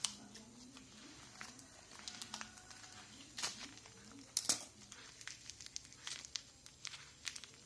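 Plastic wrapping of a LOL Surprise toy crinkling as it is worked open by hand, in faint scattered crackles with a few sharper clicks, the loudest about four and a half seconds in.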